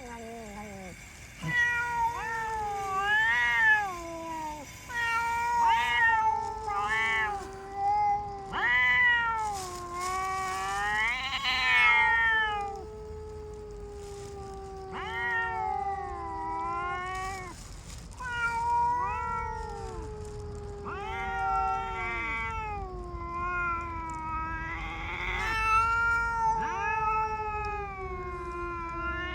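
Stray cats in a standoff caterwauling: one long, low, drawn-out moaning yowl that wavers in pitch, with shorter rising and falling wails over it. A hiss-like burst about ten seconds in fits the mother cat's threat display against the boss cat.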